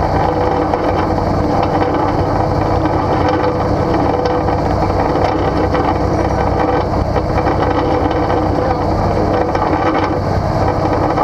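An off-road vehicle's engine running steadily, with no revving.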